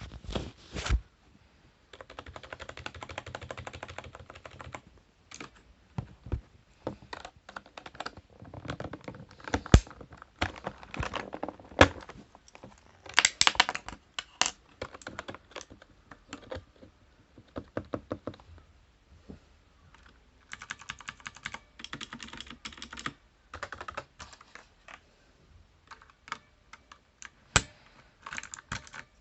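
Typing on a computer keyboard: runs of rapid key presses broken up by single, louder key strikes.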